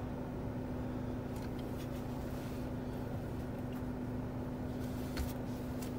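Steady low hum inside a BMW X3 cabin with the car's systems running, with a faint click about five seconds in.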